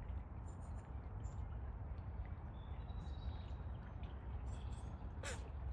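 A sandhill crane sneezing once near the end, a single short, sharp snort, over a steady low rumble and faint high chirps.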